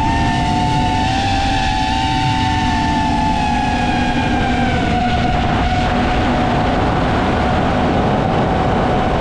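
FPV racing drone's brushless motors and propellers whining steadily over a rush of air noise, the pitch wavering slightly in the first few seconds and then holding level as the drone cruises.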